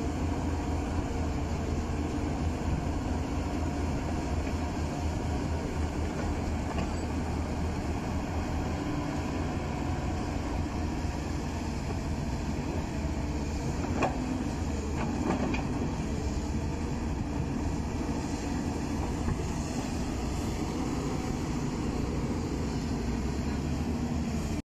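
Amphibious piling excavator running steadily, a continuous low machine rumble, with a few sharp knocks about halfway through.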